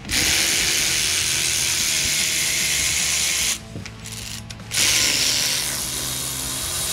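Cordless 3/8-inch-drive electric ratchet running, spinning out the driveshaft flange bolts that were already broken loose. It runs in two long spells, the first about three and a half seconds, the second starting just under five seconds in.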